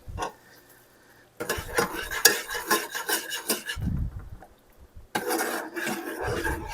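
A utensil stirring cream into a butter, garlic and flour roux in a pan, scraping and clinking against the pan. Two spells of stirring: from about a second and a half in to nearly four seconds, then again from about five seconds.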